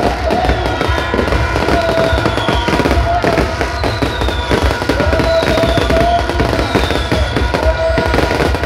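A fireworks display: dense, continuous crackling and popping of many fireworks going off at once.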